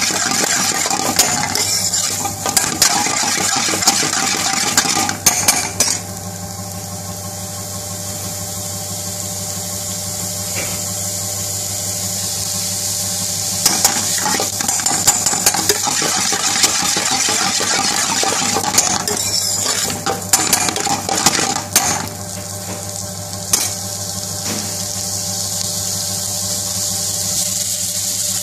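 Chicken pieces and onions sizzling in a wok over a steady low hum, with a metal spatula scraping and clattering against the pan in two spells of stirring: in about the first six seconds, and again from about 13 to 22 seconds in.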